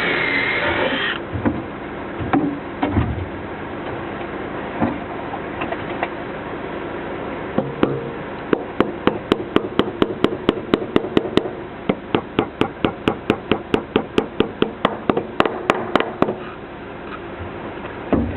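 Hammer driving gutter brackets into place: a few scattered knocks, then a fast run of sharp hammer blows, about three to four a second for some eight seconds, ending a couple of seconds before the end. A brief loud rushing sound comes at the very start.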